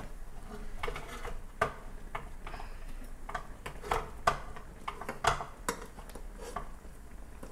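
A metal spoon clinking and scraping against a frying pan while basting a snapper head with its simmering braising liquid. Irregular sharp clicks, a few louder knocks among them, over the bubbling of the liquid.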